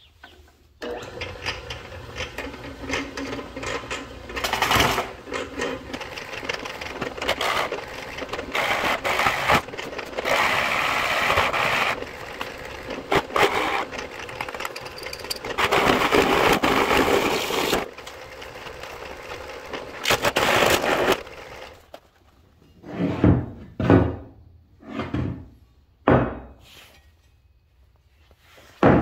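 Bench drill press running with a Forstner bit boring into a wooden block, the cutting noise swelling and easing as the bit is fed in and lifted. The drilling stops about three-quarters of the way through, followed by a handful of short knocks and clunks.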